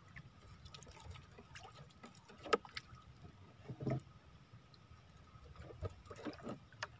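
Water lapping faintly against the hull of a small outrigger fishing boat, with a few light knocks and clicks, the clearest about two and a half seconds in and just before four seconds.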